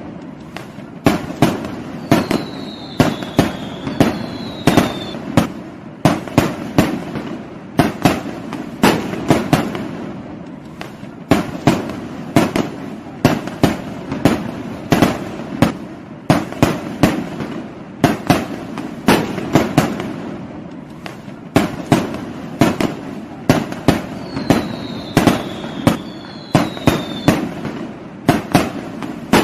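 Fireworks and firecrackers going off in rapid clusters of sharp bangs and crackles over a continuous rumble. Twice, a pair of short falling whistles sounds through the bangs. The same sequence repeats about every 22 seconds.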